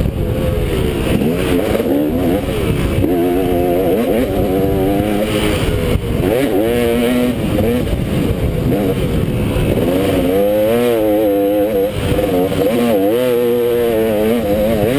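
KTM motocross bike's engine at race pace, revving hard and falling off again and again as the rider works the throttle through jumps and down a straight, heard from the rider's helmet.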